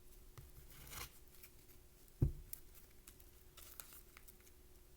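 Faint handling noise: light rustles and small clicks, with one soft thump about two seconds in, over a faint steady hum.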